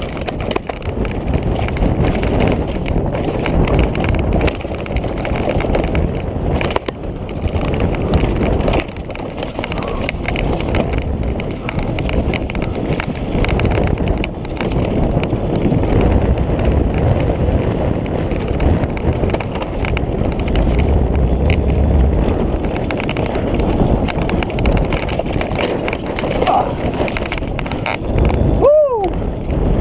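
Orbea Rallon mountain bike running fast downhill on a rough dirt and rock trail: tyres rumbling and crunching over leaves and stones, with constant clatter and rattling from the bike over the bumps. A brief squeal that rises and falls near the end.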